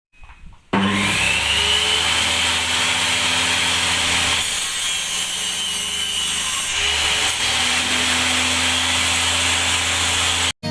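Homemade table saw (a circular saw mounted under a table) running and cutting through block board: steady motor hum and a high blade whine over the rasp of the blade in wood. It starts abruptly about a second in and cuts off suddenly near the end.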